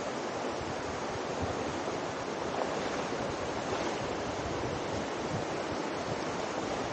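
The Virgin River flowing: a steady rush of moving water.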